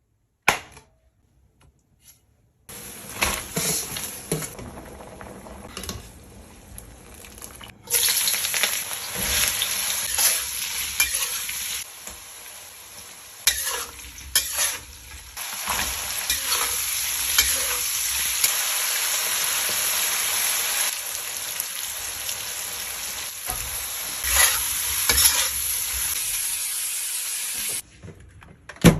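Food sizzling as it fries in a hot pan, with a utensil scraping and clacking as it is stirred. The sizzle gets louder about eight seconds in and stops suddenly shortly before the end.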